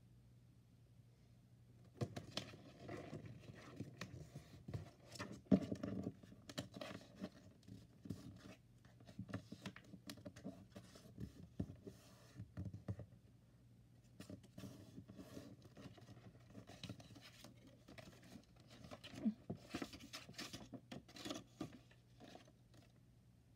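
Sheets of card and paper being handled on a desk: sliding, scraping and rustling with small clicks and taps as the sheets are squared up and lifted, starting about two seconds in.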